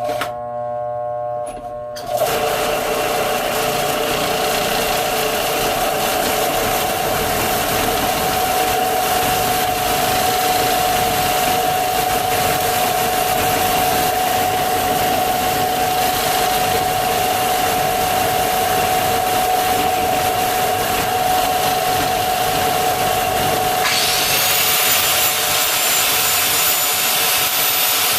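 Belt sander with a 40-grit belt grinding the steel head of a railroad track section flat. The motor hums, then about two seconds in the belt bites into the steel and a loud, steady grinding takes over. A high whine joins near the end.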